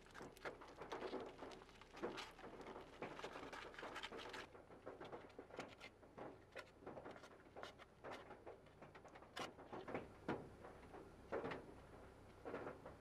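Disposable chopsticks working sticky natto from its plastic tray onto rice: faint, irregular taps, clicks and scrapes of wood on plastic and food.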